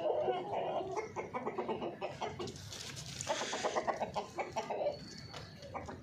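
Chickens clucking: a run of rapid short clucks at the start and another about three seconds in.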